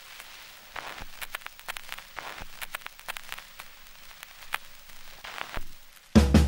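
Faint crackling static with irregular sharp pops and clicks, like an old film soundtrack or record surface noise. About six seconds in, loud rock music with guitar and drums cuts in abruptly.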